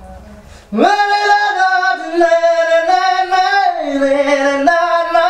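Faint instrumental music, then about a second in a man's voice comes in loudly, singing a high, wordless melody in long held notes that step and slide between pitches.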